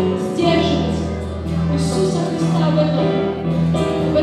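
A live worship band playing and singing: several voices over keyboard, acoustic guitar and bass guitar, with long held bass notes underneath.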